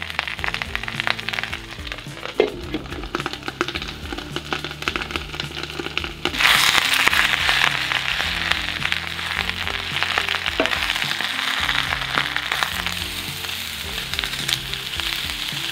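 Hot oil crackling and popping in a skillet. About six seconds in there is a sudden loud sizzle as the collard greens go into the pan, and they keep frying.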